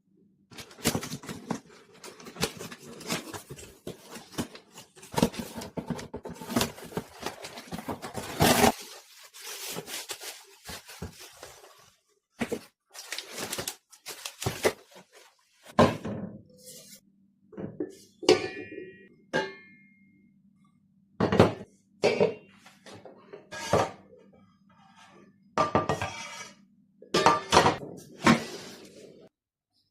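Pieces of a Royalford die-cast non-stick cookware set being unboxed and handled. A dense stretch of rustling and clattering runs for the first nine seconds or so. After that come separate knocks and clinks as pots and lids are set down, some ringing briefly.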